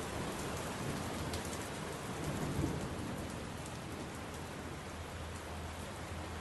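Steady rain falling, with a low rumble of thunder that swells briefly around the middle.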